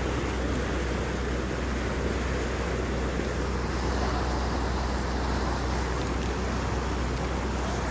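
Steady low drone of a lake cruise boat's engine, with a rushing wash of water and wind over it.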